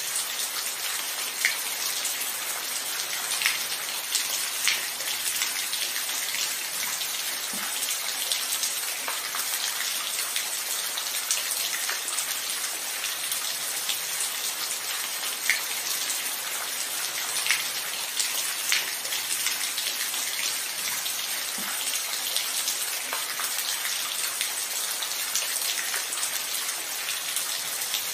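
Steady rain, a dense even hiss with louder single drops ticking now and then, and no thunder.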